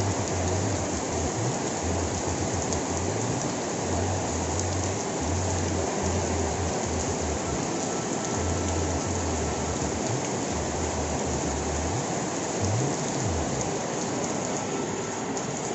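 Steady rain pattering and trickling, an even hiss with no breaks, with a low rumble coming and going underneath.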